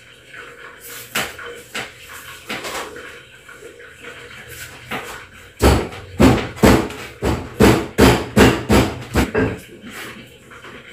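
About a dozen rhythmic chopping knocks, a knife striking down on a cutting surface as fish is cut up, starting about halfway in and lasting some four seconds.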